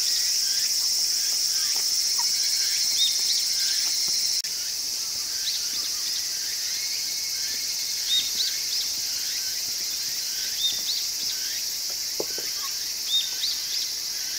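Steady high-pitched chorus of insects, with short high chirps scattered through it. The level drops slightly at a cut about four seconds in.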